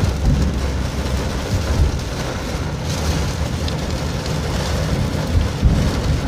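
Torrential rain pelting a moving car, heard from inside the cabin, over a steady deep rumble of the car and its tyres on the wet road.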